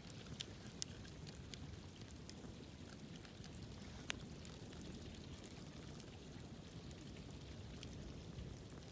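Wood campfire crackling, with scattered sharp pops and snaps over a low steady rush; the loudest pop comes about four seconds in.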